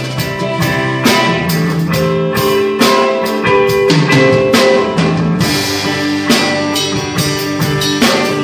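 Drum kit played along to music with guitar: regular drum and cymbal hits over sustained guitar notes.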